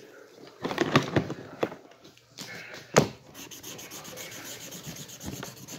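Rubbing and scraping on a surface, with sharp knocks about a second in and a louder one about three seconds in; after that, quick, even scratching strokes.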